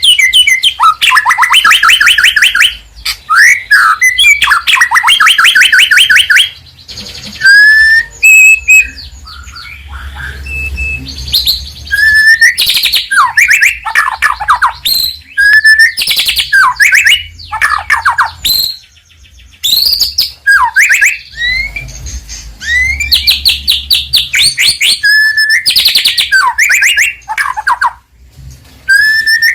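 White-rumped shama singing a loud, varied song of fast trills, rapid runs of repeated notes and whistled up- and down-slurs, with short breaks between phrases.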